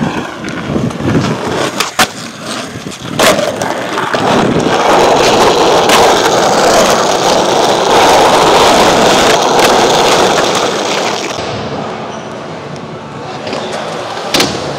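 Skateboard wheels rolling loudly over asphalt, with a few sharp clacks of the board. The rolling is loudest in the middle and eases off after about eleven seconds.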